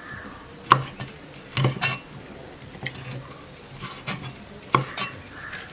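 Knife chopping fried chicken into small pieces, with about six sharp, irregularly spaced knocks.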